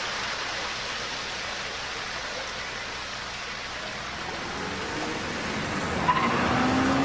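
Steady rushing of flowing water, like a stream or river. Near the end it grows a little louder, with a faint hum rising in pitch and one short sharp sound about six seconds in.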